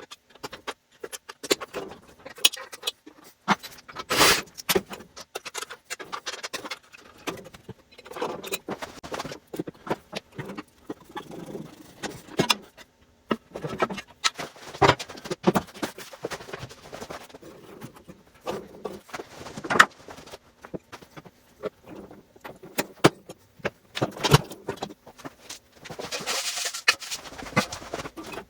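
Irregular metallic clinks, clanks and knocks of tools and metal parts as a refrigerator's base plate and compressor motor are taken off, with a brief scraping rush near the end.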